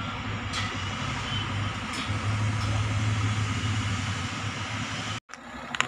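Engine running steadily with a low hum, with a few faint clicks over it. The sound breaks off briefly near the end.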